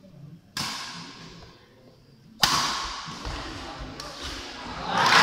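Badminton racket strikes on a shuttlecock echoing in an indoor hall: two sharp cracks about two seconds apart, the second louder. Near the end the spectators break into cheering and clapping as the rally ends.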